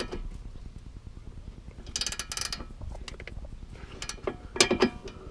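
Hand ratchet clicking in short runs, about two seconds in and again near the end, as the nuts on sway bar end links are tightened.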